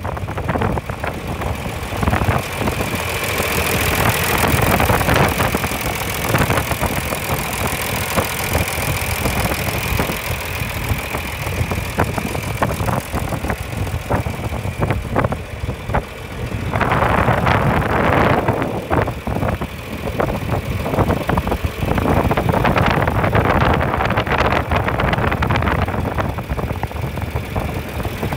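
John Deere farm tractor engine running steadily at idle, getting louder for a couple of seconds about two-thirds of the way in.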